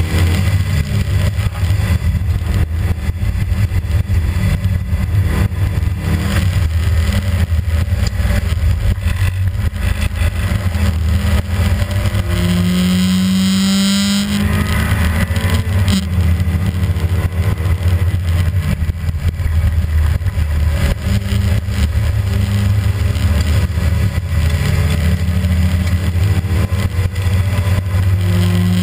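Rally car's engine running hard at high revs, heard from inside the cabin at speed. About halfway through the note changes briefly, with a short rising tone and a rush of hiss, before the steady drive resumes.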